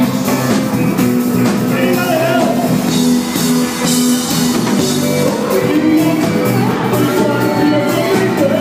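Live band playing: drum kit, keyboards, bass and conga drums, with singing over the music.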